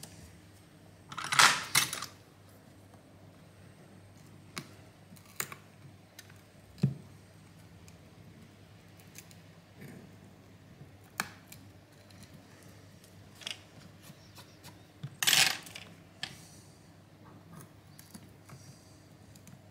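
Metal tweezers and a pry pick clicking and scraping on a phone's cracked glass back while picking at the broken glass around the rear camera: scattered light ticks, with two louder, longer scraping noises about a second in and about fifteen seconds in.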